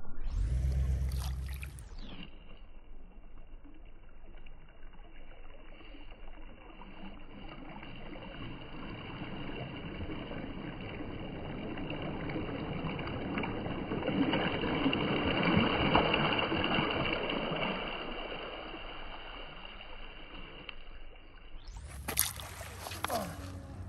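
Small lake waves lapping and washing over a shore of rounded cobbles and pebbles, swelling and easing, with a few sharp clatters near the end. A low rumble fills the first couple of seconds.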